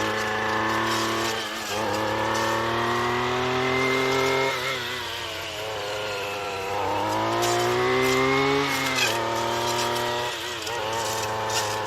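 Gas weed whacker fitted with a chainsaw-tooth disc blade, running at high revs while cutting brush and vines. The engine note drops and climbs back several times as the throttle eases and comes back on, with short crackles from the blade hitting brush.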